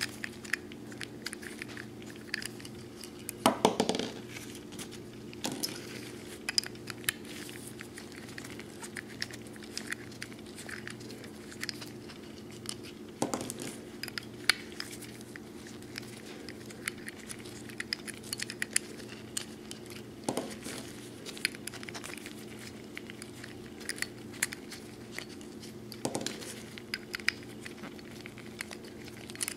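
Small metal clicks and scrapes of a nipple wrench working the percussion nipples on a cap-and-ball revolver's cylinder, with nitrile gloves rubbing. A handful of louder handling knocks stand out, over a steady low hum.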